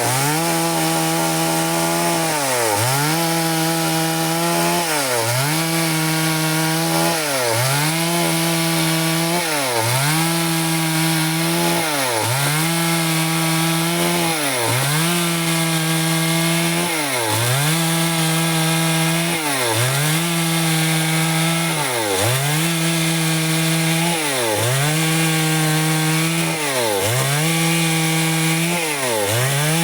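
Stihl two-stroke chainsaw running at high speed while ripping through wood. Its engine note sags briefly and recovers about every two seconds as the bar is pushed through the cut under load.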